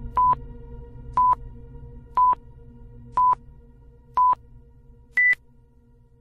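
Intro sound effect: short electronic beeps, one a second, five at one pitch and a sixth higher one, in the pattern of a countdown. Under them a low drone fades away toward the end.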